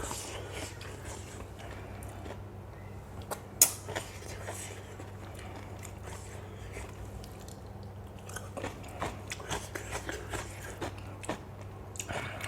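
A person chewing and biting crunchy food close to the microphone, with scattered crunches and wet clicks, more frequent in the second half, over a steady low electrical hum.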